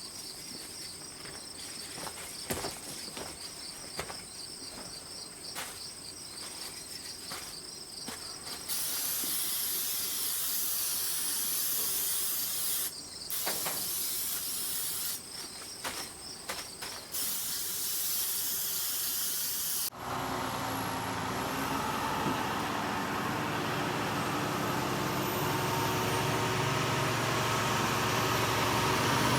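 Insects chirping steadily, with a few soft clicks, for the first eight or nine seconds. Then a loud hiss with a few brief breaks. Then, from about twenty seconds in, a heavy engine running, with a high whine and a slow rise in loudness.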